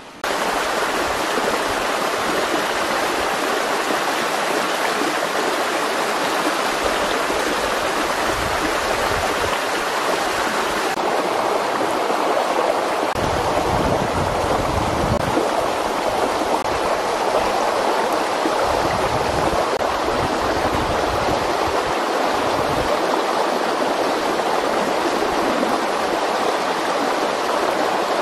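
Steady rushing of a flowing stream over rocks, with low rumbles that come and go.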